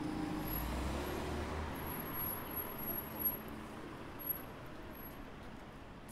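Road traffic: a passing vehicle's low rumble fades over the first couple of seconds into steady street noise, with a couple of faint sharp knocks in the middle.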